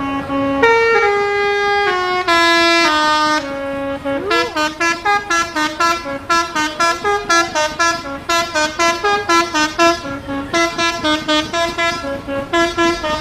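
Multi-tone "telolet" basuri horn of a bus or truck playing a tune: a few held notes stepping down in pitch, then a fast run of short, clipped notes, several a second.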